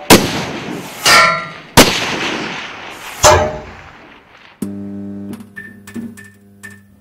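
Logo-intro sound effects: a series of gunshot sounds, each with a long echoing decay, over the first three and a half seconds. About four and a half seconds in, a low sustained piano-like chord enters with a few light clicks and pings over it.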